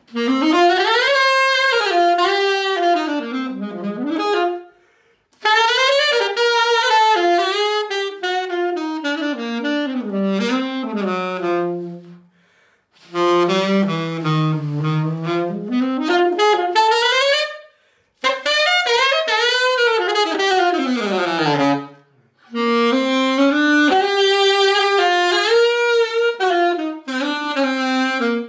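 Cannonball Big Bell Stone Series alto saxophone played solo: a flowing melody with runs up and down, in five phrases separated by brief pauses for breath.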